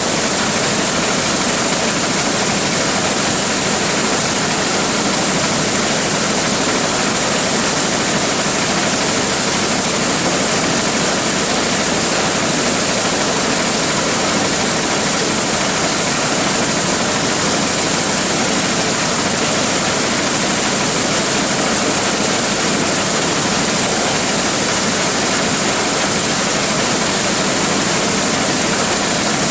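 Large corn sheller (thresher) running steadily under its engine, a loud, even noise with a constant high hiss and no change in pace.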